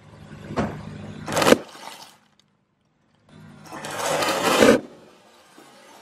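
A car tyre rolling on concrete onto a foil bag of tortilla chips, the bag crinkling and the chips crunching as it is crushed flat. There are two loud bouts of crunching, the second swelling and then stopping sharply near the five-second mark.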